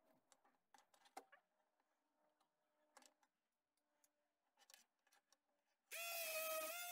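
Faint handling clicks and taps of a small wooden block being set down and steadied. About six seconds in, a handheld electric power tool's motor starts up, spinning up quickly into a loud, steady whine.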